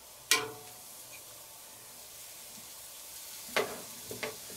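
Sausages sizzling on a grill grate over charcoal, with a sharp clack of metal tongs about a quarter second in and two more clacks near the end.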